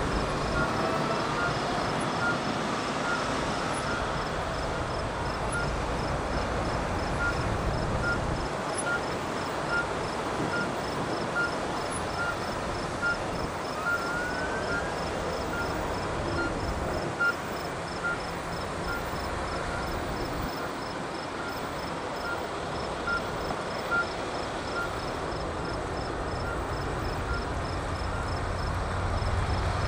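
A parade of fire trucks rolling slowly past, with engines running and tyres on the road. The engine rumble swells again near the end as another truck approaches. A faint regular beeping repeats throughout, and a brief rising whoop sounds about halfway.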